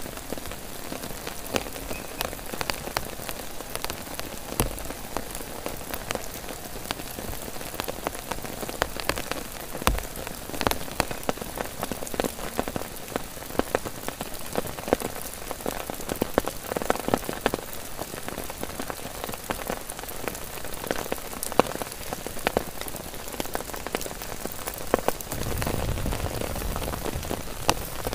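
Heavy rain falling on a dome tent's flysheet and the surrounding grass and leaves: a steady rain hiss with many sharp close drop ticks. A deeper rumble swells in near the end.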